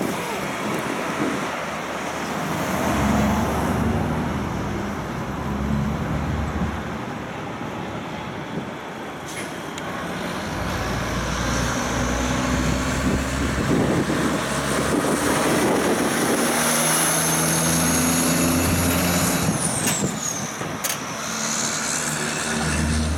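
Heavy diesel trucks passing: a curtainsider truck pulling away, then a loaded cab-over log truck and trailer driving up and past, its engine growing louder. A high whistle falls in pitch near the end.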